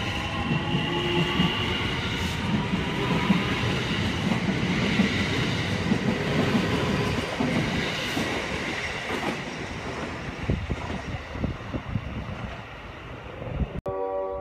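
JR West electric commuter train running past on the near track: a dense rumble of wheels on rail with some clickety-clack over the rail joints and a few steady high-pitched tones early on, fading as the last cars go by. Near the end the sound cuts off and a brief steady tone follows.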